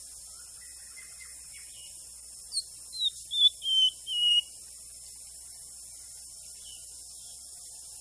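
White-rumped shama song: a quick run of five loud, clear whistled notes about midway, each lower than the last, after softer short notes near the start.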